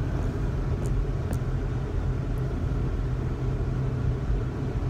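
Steady low rumble of a car's engine and tyres on a snow-covered road, heard from inside the cabin while driving. Two faint ticks come about a second in.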